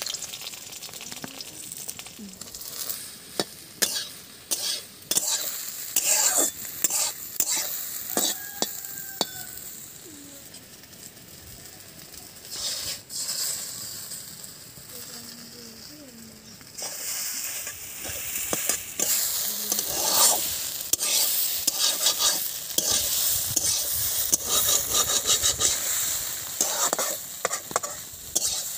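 Vegetables frying in hot oil in a pan, sizzling, while a utensil stirs them with repeated clicks and scrapes against the pan. The sizzle grows suddenly louder a little past halfway.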